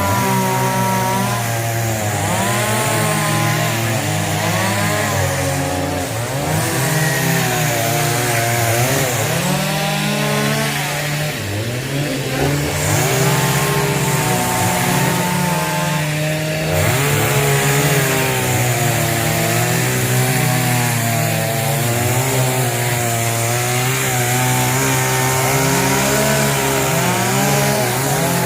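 A two-stroke chainsaw cuts into wood, its engine pitch rising and dipping over and over as it revs and bogs down under load in the cut.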